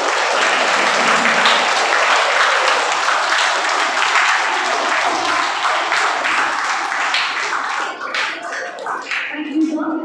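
Audience of schoolchildren applauding with many hands clapping, the applause thinning out and dying away about eight seconds in.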